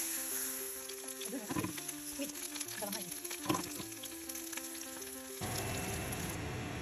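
Food sizzling as it fries in a pan, with soft background music underneath. About five and a half seconds in, the sizzle changes to a fuller, lower hiss.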